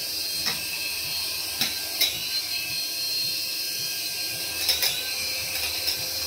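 Small coaxial toy RC helicopter hovering: a steady high whine from its tiny electric motors and spinning rotors, with a few sharp ticks now and then.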